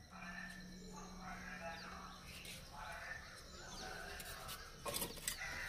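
Birds calling over and over, with a low steady hum in the first two seconds. Near the end come two sharp wooden knocks as sticks of firewood are pulled from a stacked pile.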